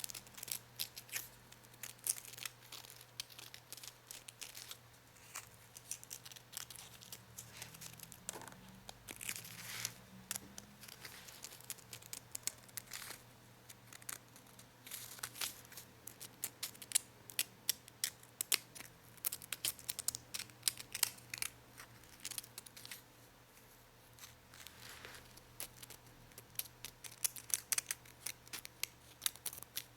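A worn, nearly used-up nail file being scratched in irregular short rasping strokes, some single scrapes and some quick runs.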